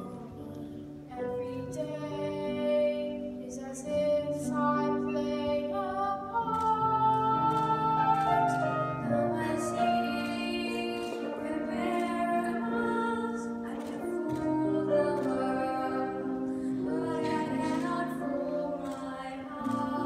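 Young girls singing a slow song into microphones with instrumental accompaniment, holding long notes.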